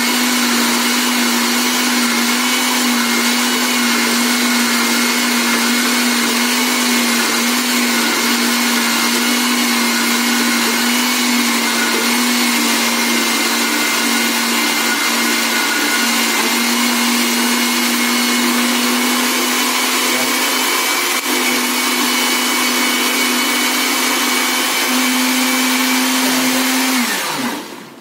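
Electric countertop blender running steadily, blending a thick corn fishing-bait mixture, with a constant motor hum and whine. Near the end it is switched off and the motor winds down with a falling pitch.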